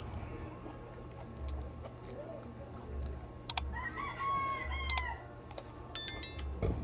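A rooster crowing once, a single drawn-out call about four seconds in. A short electronic chime follows near the end.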